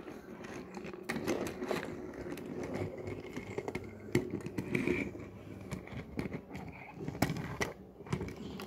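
Toy cars being handled and rolled across a wet plastic surface: scattered clicks, taps and rubbing, with a few sharper clicks.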